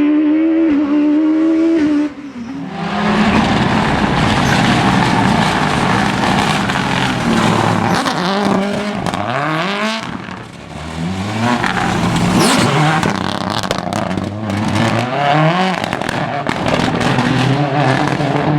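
Rally car engines at full throttle, pitch climbing and dropping again and again through gear changes, after about two seconds of a held note from the intro music.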